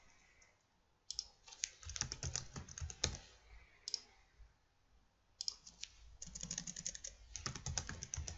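Typing on a computer keyboard: two quick runs of keystrokes, the first from about a second in to about three seconds, the second over the last three seconds, with a lone keystroke between them.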